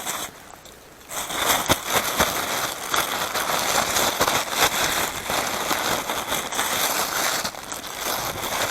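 Pieces of flour-coated burbot sizzling and crackling in a hot non-stick frying pan, starting about a second in as the fish goes into the pan and keeping on steadily.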